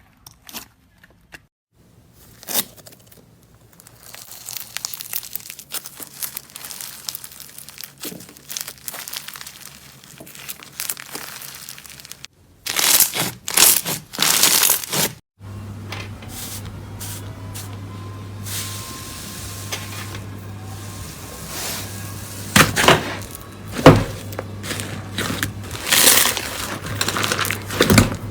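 Slime being pressed and squished by hand, giving bursts of crackling, popping clicks. About halfway through a steady low hum comes in under it.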